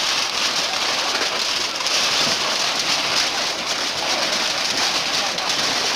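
A large structure fire burning close by: a dense, steady crackling hiss from the blaze.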